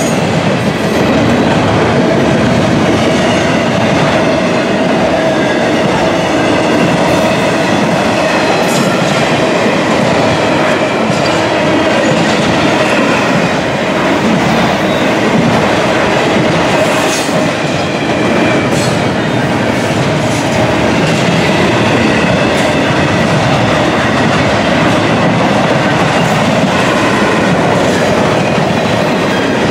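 Intermodal freight train's cars rolling past close by: a loud, steady rumble of steel wheels on the rails, with a few sharp knocks along the way.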